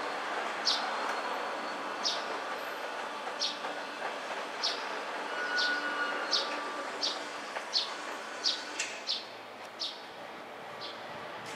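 Motorised steel roller shutter rolling up with a steady rumble that fades near the end. Over it, a small bird chirps about a dozen times, roughly once a second.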